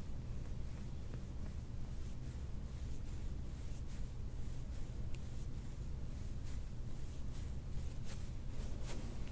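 Glass suction cup dragged back and forth over the skin of a back in sliding cupping, making repeated short rubbing, scraping strokes, over a steady low hum.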